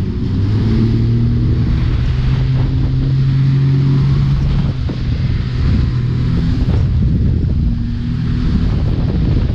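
Motorboat engine running at speed while towing, its hum rising slightly in pitch and then easing off about halfway through, over the rush of the churning wake and wind buffeting the microphone.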